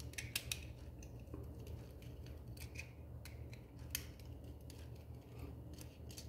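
Faint, scattered clicks and taps of a plastic hanging plug and small hand tools being handled and opened apart, over a low steady hum.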